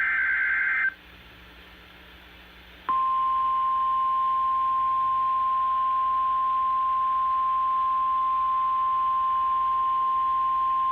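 Emergency Alert System signalling: a harsh, warbling SAME digital header burst ends about a second in, and after a short gap a single steady Weather Radio alert tone near 1 kHz (the 1050 Hz warning alarm tone) begins about three seconds in and holds steady.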